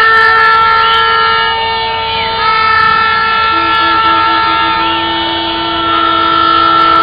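Several car horns honking at once in long, overlapping blasts, held steady, as drivers celebrate a football victory in the street. A lower horn joins about halfway through with a few quick beeps, then holds.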